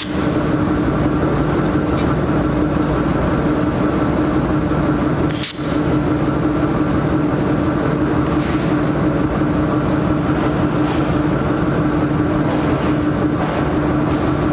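Machinery running with a loud, steady hum and a constant low tone, with one short click about five and a half seconds in.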